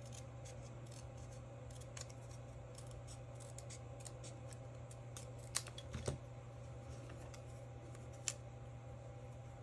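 Scissors snipping paper: a run of small, irregular clicks, with a few sharper snips past the middle.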